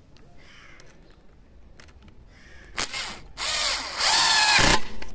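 Parkside PDSSA 20-Li A1 cordless impact driver with a brushed four-pole motor driving a 2.9 × 50 mm screw into a wooden beam. A short blip of the trigger comes near the middle. Then the motor whines for about a second and a half and gets louder in the last part, where the impact mechanism engages to seat the screw, before it stops abruptly.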